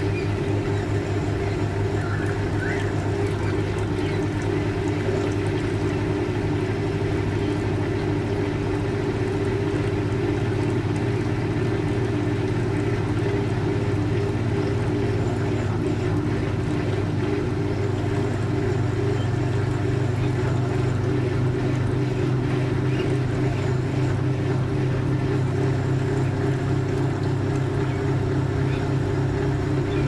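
Fisher & Paykel Washsmart top-loading washing machine agitating a load in water: a steady motor hum with a fast, even churning rhythm that does not change.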